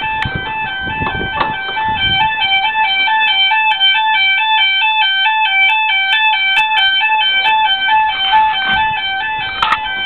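Fire alarm sounder going off with a two-tone alarm, switching back and forth between two close pitches several times a second.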